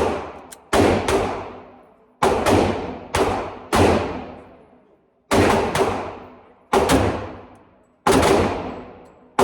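Pistol fire in .45 ACP: about a dozen sharp shots at uneven spacing, some in quick pairs. Each shot leaves a reverberant echo that dies away.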